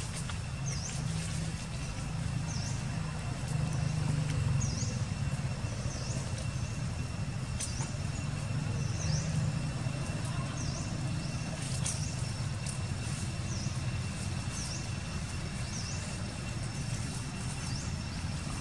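Outdoor ambience: a steady low rumble under a thin, steady high whine, with a bird's short high chirp repeated about once a second and a couple of faint clicks.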